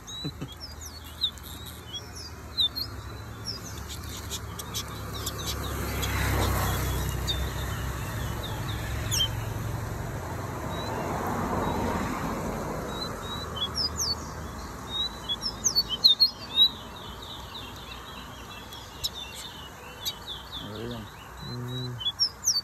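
Small caged songbirds, seed finches, sing in quick chirps and short trills throughout, as two birds are pitted against each other in a song contest. A broad rushing background noise swells twice, around a quarter and half of the way through.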